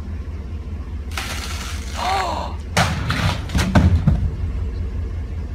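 A steady low rumble, then a rushing noise from about a second in, followed by a cluster of thuds and crashes around three to four seconds in.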